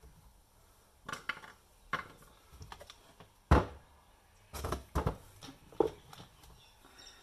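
Irregular clicks and knocks of hard parts being handled while a coffee grinder is taken apart, the loudest knock about three and a half seconds in.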